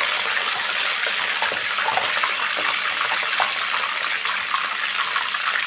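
Makrout pastries deep-frying in a large pan of hot oil: a steady sizzle with fine crackles.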